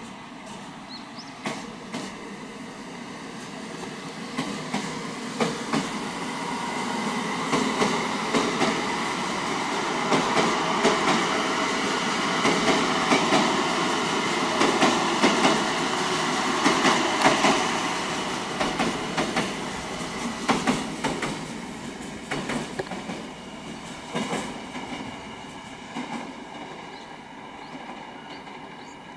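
A 700-series Rail Star Shinkansen train running past on the tracks: a steady rumble of wheels on rail, with sharp clicks as the wheels cross rail joints. The sound builds to its loudest around the middle, then fades as the train pulls away.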